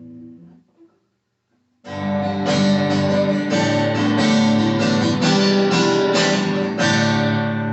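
Acoustic guitar: a ringing note dies away, a second of silence, then chords are strummed steadily from about two seconds in, played to check that the guitar is in tune.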